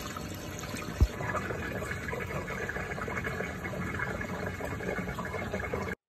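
Dirty wash water pouring from a portable washing machine's drain hose into a floor drain: a steady splashing gush, with a single low thump about a second in.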